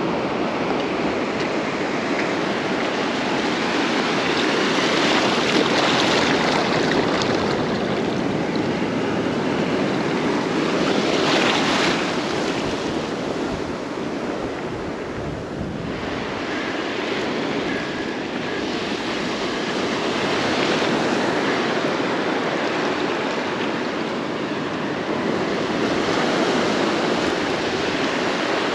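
Ocean surf washing up and back over the sand, swelling louder and softer every few seconds as the waves come in.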